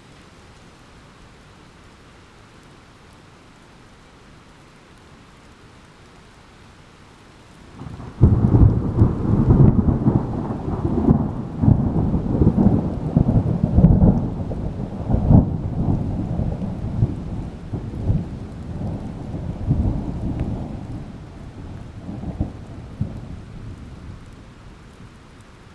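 Thunderstorm: steady rain hiss, then about eight seconds in a sudden thunderclap that breaks into a long crackling rumble, slowly dying away over some fifteen seconds back to the rain.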